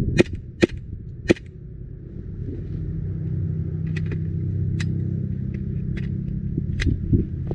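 Tokyo Marui Hi-Capa gas blowback airsoft pistol firing: three sharp shots in the first second and a half, then several lighter clicks spread over the rest. A low rumble builds underneath from about two and a half seconds in.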